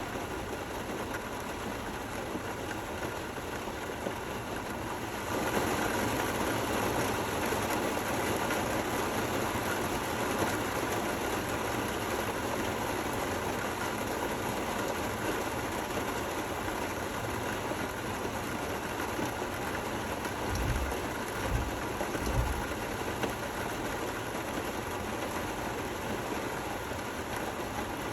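Steady rain, growing louder about five seconds in, with a few brief low thumps a little past the middle.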